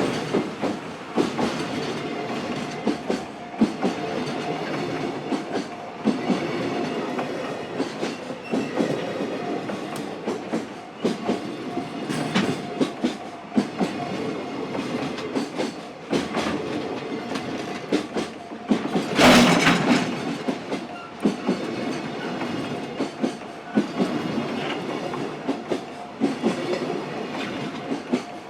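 JR Freight freight train rolling through a level crossing, its wagon wheels clacking over the rail joints in a long, irregular stream of clicks with a steady tone underneath. The train is loudest for a moment about two-thirds of the way through.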